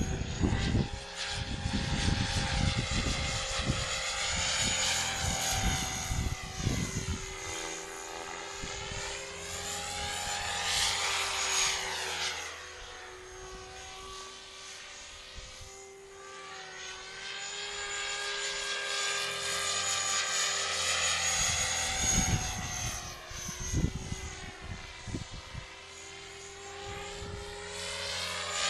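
Flasher 500 radio-controlled model helicopter flying overhead, a steady rotor drone and high whine whose tone sweeps and phases as it manoeuvres. It fades in the middle and grows louder again. Wind buffets the microphone near the start and again about two-thirds of the way in.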